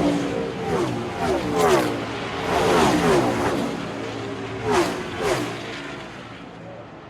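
Fast car engines at high revs, the engine note sliding down in pitch over and over, with whooshes as they go by. The sound fades out near the end.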